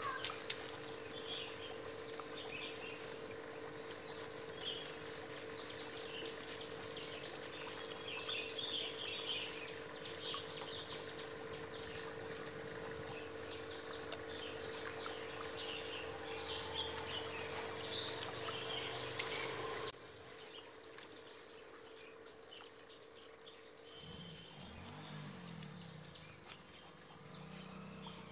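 Birds chirping repeatedly over a steady hum, with light water sloshing as a fine net is worked through a shallow fish tank. About twenty seconds in, the hum and most of the chirping drop away abruptly.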